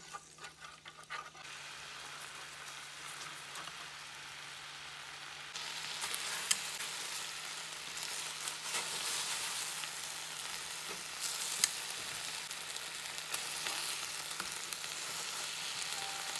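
Sweet-spicy sauce sizzling in a hot nonstick pan while a wooden spatula stirs it. About five and a half seconds in, the sizzling gets louder as rice cake skewers are turned through the bubbling sauce, with a couple of sharp ticks.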